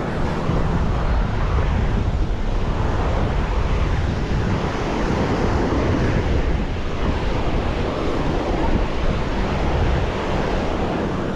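Surf washing onto a beach, with wind buffeting the microphone as a steady low rumble.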